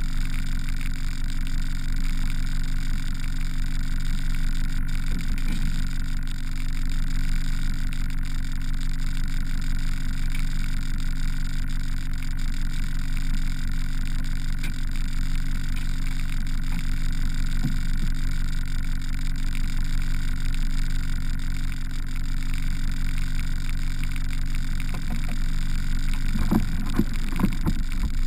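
Outboard motor on a small fishing boat running at a steady speed, a constant even hum, with a few light knocks near the end.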